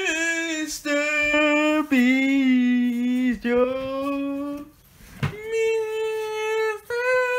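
A voice singing a slow tune in about six long held notes with short breaks between them; the notes step down at first, then after a brief pause and a short sharp sound the tune picks up higher.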